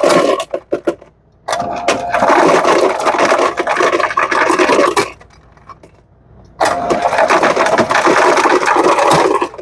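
Ice cubes clattering out of a Lancer FS-30 soda fountain's ice chute into a bucket in three dispenses. The first ends just after the start, the second runs about three and a half seconds and the third about three seconds. Each stops abruptly as the chute is released and the door closes, showing the chute now shuts off properly.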